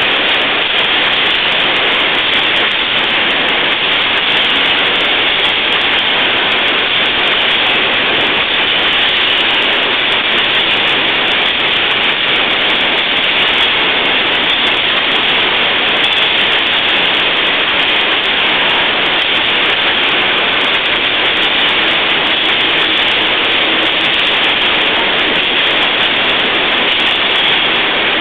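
Freight train of tank wagons rolling past at close range: a steady, loud, unbroken rush of wheels on rail.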